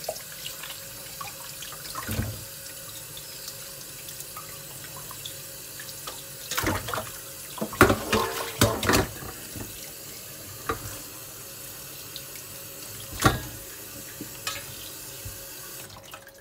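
Tap water running steadily into a stainless steel bowl of water while peeled cassava pieces are rubbed and turned by hand in it, with louder splashes a few times, most between about six and nine seconds in. The running water stops near the end.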